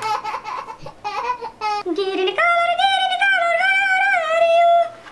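A child's high-pitched voice: short choppy vocal sounds with a quick upward squeak, then one long sung note held for over two seconds that wavers up and down.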